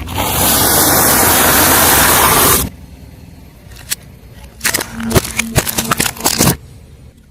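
Car tyre rolling over and crushing objects: a loud rushing noise for about two and a half seconds, then after a pause a run of sharp cracks and snaps.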